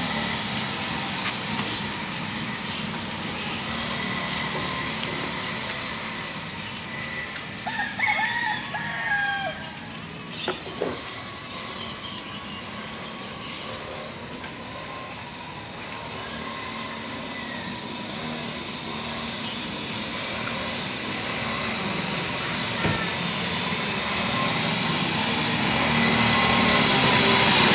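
Small 49cc two-stroke pocket bike engine buzzing, fading as the bike rides away and growing louder as it comes back near the end. A rooster crows about eight seconds in.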